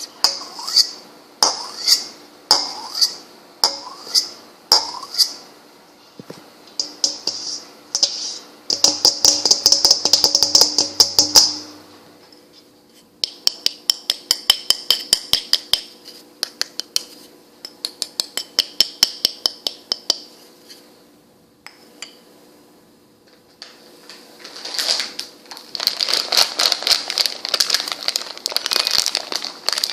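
Kitchen dishes and utensils being tapped and clinked: single taps a second or so apart at first, then runs of rapid tapping in several bursts with short pauses between.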